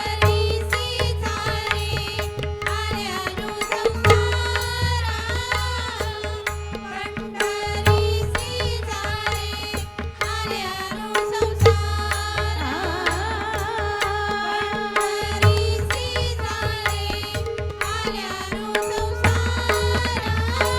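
Indian devotional music: a woman's voice singing an ornamented, wavering melody, accompanied by tabla and pakhawaj drums over a steady held drone.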